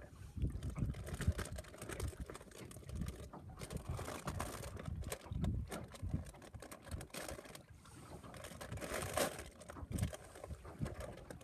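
Wind buffeting the microphone with an uneven low rumble, over choppy lake water slapping and splashing against a boat's hull, with louder splashes about four seconds in and again about nine seconds in.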